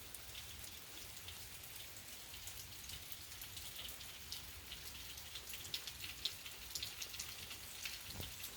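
Rain falling steadily, with scattered ticks of individual drops striking a surface over a low, even hiss and hum.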